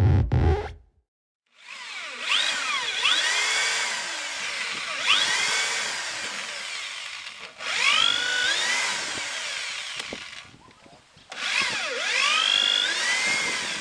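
Hand-held electric power tool running on wood, its motor pitch sweeping up and down again every couple of seconds as it is pressed into the work, with a brief pause near the end. The tail of a music intro plays in the first moment.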